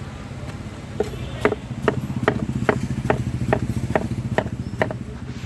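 Knife chopping watermelon on a wooden board in a steady rhythm, about two to three strokes a second, over a low steady hum.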